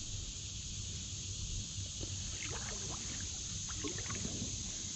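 Steady outdoor creek ambience: a low rumble and an even high hiss, with a few faint short sounds in the second half.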